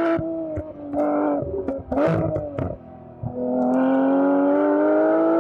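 Porsche 911 GT3's 4.0-litre naturally aspirated flat-six engine under way, its revs dropping with a string of sharp pops and crackles from the exhaust about two seconds in, then pulling through a gear with a steadily rising pitch.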